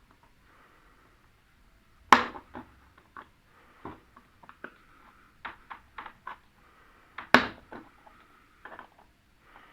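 Parts of an opened-up LED TV being handled during disassembly: two sharp knocks, about two seconds in and again near seven seconds, with light clicks and taps between them.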